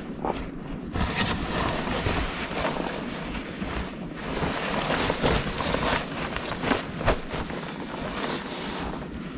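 Gusty wind blowing and buffeting the microphone, rising and falling in strength with a few sharp knocks.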